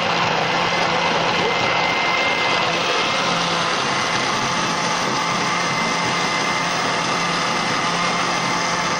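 Countertop electric blender running steadily, blending hard coconut pieces with water into coconut milk, with a thin high whine over the motor noise.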